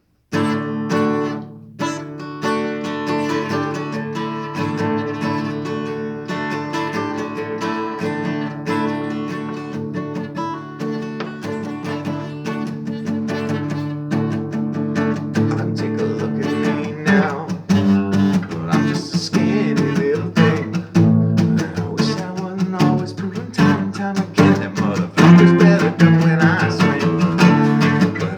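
Instrumental song intro led by guitar: held, ringing chords, then busier rhythmic strumming that gets louder about two-thirds of the way through.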